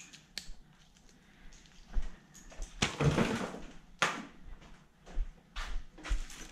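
Wiring and small parts being handled and pulled out of an engine bay: a few sharp clicks and knocks, with a louder rustling scrape about three seconds in.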